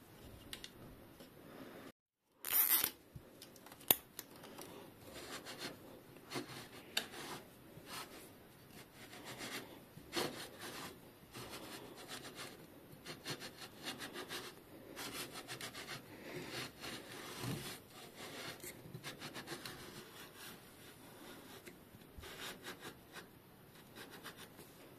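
Bottom bracket facing cutter being turned against a bicycle frame's bottom bracket shell, scraping in rough, uneven strokes as it shaves paint off the shell face. A short loud scuff comes about two and a half seconds in, followed by a sharp click.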